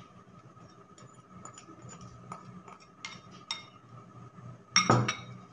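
A utensil stirring a dry flour and cocoa mix in a ceramic bowl, with light clicks and taps against the bowl and a louder clatter near the end. A faint steady hum runs underneath.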